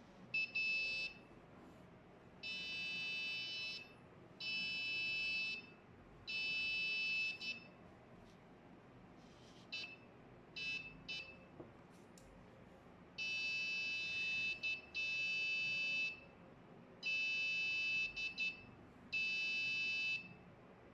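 Buzzer of an Arduino Nano ultrasonic distance-detector circuit beeping: a steady high-pitched tone in on-off beeps of about a second each, with a few short chirps in the middle. The buzzer sounds when an object such as a hand comes within range of the ultrasonic sensor.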